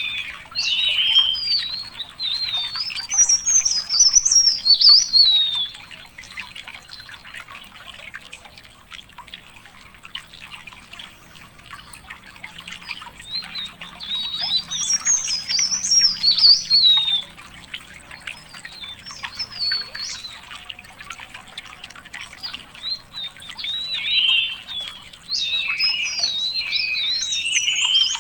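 A songbird singing long, varied warbling phrases of fast high notes, three song bouts of several seconds each with quieter pauses between.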